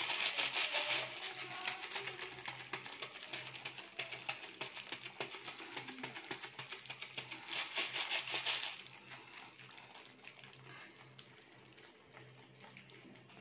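Thick yogurt-and-cashew fish curry simmering in a pan, a dense bubbling crackle that drops away about eight and a half seconds in.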